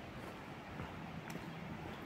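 A walker's footsteps on a path with a few faint clicks, over a steady low rumble of wind or handling noise on the microphone.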